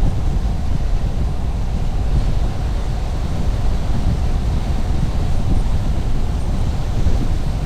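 Steady low rumble of road and wind noise from a car driving along the highway.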